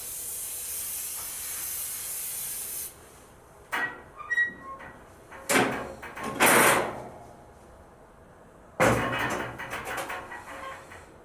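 Aerosol oven and grill cleaner spraying in one long steady hiss, stopping about three seconds in. Then a few clattering knocks and short scraping rattles as the grill's metal parts are handled.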